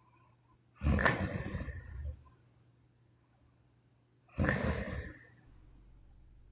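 A sleeping woman snoring: two snores, each about a second long, some three and a half seconds apart.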